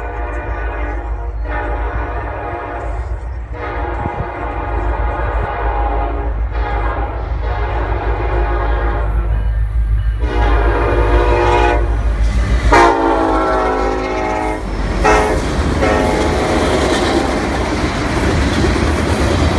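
A Ferromex freight locomotive's air horn sounds a series of long blasts as the train approaches at high speed. Partway through, the last blast drops in pitch as the locomotive passes. The freight cars then roll by with a steady rush and the clickety-clack of wheels on the rails.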